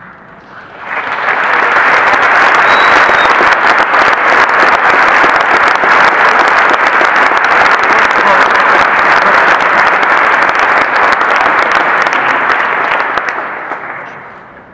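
Large audience applauding loudly: the clapping swells about a second in, holds steady, then dies away near the end.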